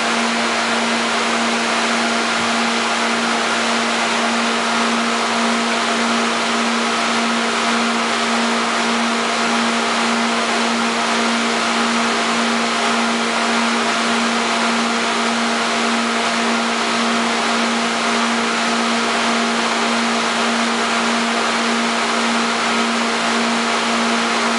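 Lobster warehouse pumps running: a loud, steady low hum over an even hiss that does not change.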